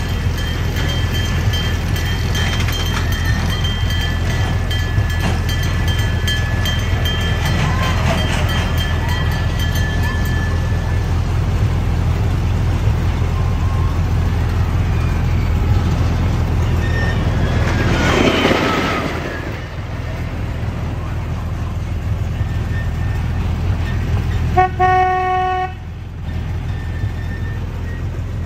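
Miniature amusement-park train running with a steady low rumble that eases off about two-thirds in, as if slowing. Near the end its horn gives one short toot of about a second.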